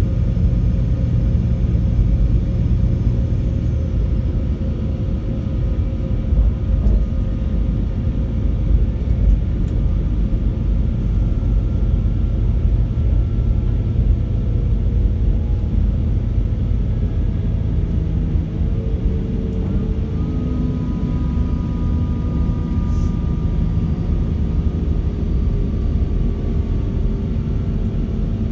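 Class 196 (CAF Civity) diesel multiple unit under way, its MTU inline-six diesel engines running with a steady low rumble and whining tones that slowly fall in pitch as the train slows. About two-thirds of the way through, the ZF gearbox downshifts and the whines step up in pitch, then begin falling again.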